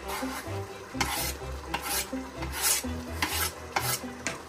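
A spoon scraping chopped coriander off a plastic cutting board into a pot of simmering gravy and stirring it in, as a run of short, irregular scrapes.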